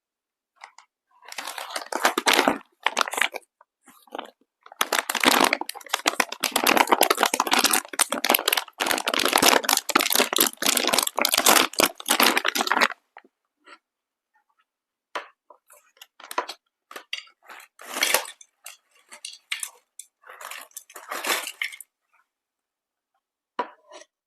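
Crisp crackling and tearing from food being torn and handled by hand over a plate, a long dense stretch and then a string of shorter bursts.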